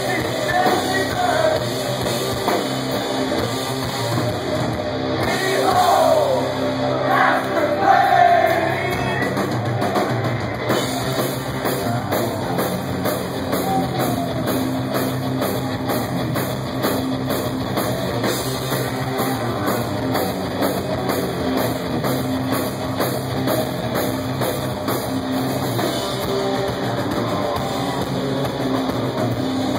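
A heavy metal band playing live: electric guitars, bass guitar and a drum kit, steady and loud, with a few bending guitar or vocal lines about six to eight seconds in.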